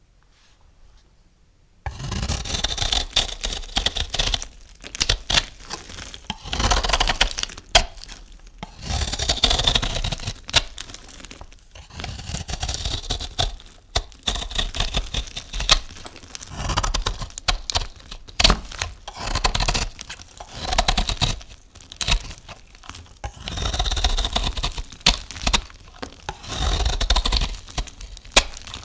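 A knife cutting through a bar of soap, each stroke a crisp crackling crunch, repeated every second or two. The cutting starts about two seconds in.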